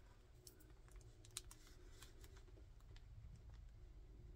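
Faint, irregular clicks and taps of a crystal-studded Pen Gems ballpoint pen writing on a paper notepad.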